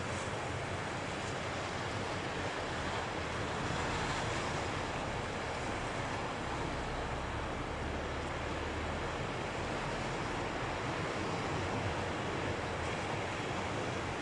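Sea waves breaking and washing on the shore in a steady, continuous rush of surf.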